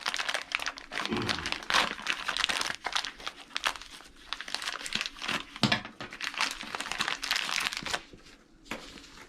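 Plastic packaging being handled and crumpled, a dense run of crinkling and crackling that thins out near the end.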